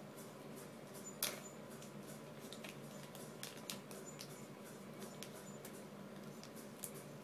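Light scattered clicks and ticks of fly-tying tools and small materials being handled at the vise, with one sharper click about a second in, over a steady low hum.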